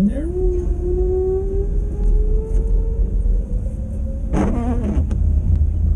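Car engine accelerating, heard from inside the cabin over a steady low road rumble: its tone climbs quickly at the start, keeps rising slowly, then drops away about four seconds in, where a brief wavering sound comes.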